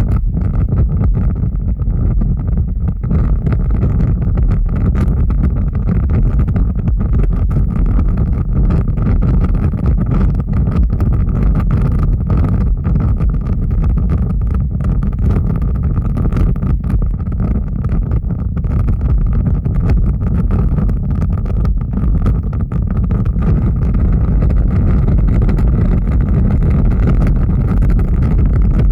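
Large fire burning: a steady deep rumble with scattered small crackles.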